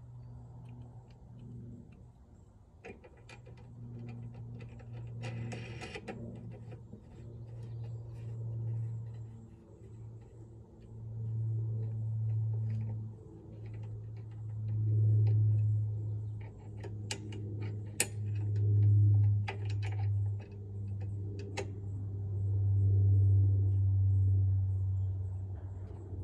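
Light clicks and a brief rattle of mower handle parts being fitted together by hand, over a low rumble that swells and fades.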